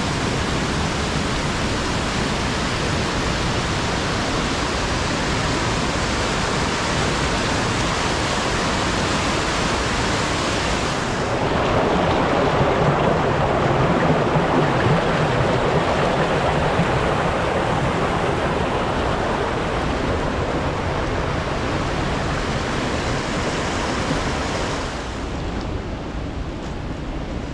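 Fast-flowing stream in spate rushing and splashing over rocks. About eleven seconds in it grows louder and less hissy, then eases back a little near the end.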